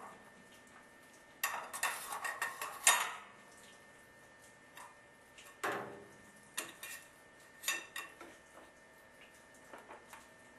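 Metal pipe fittings of a dielectric union clinking and knocking as they are handled and fitted: a quick cluster of clinks from about one and a half to three seconds in, a single knock near six seconds, then lighter scattered ticks.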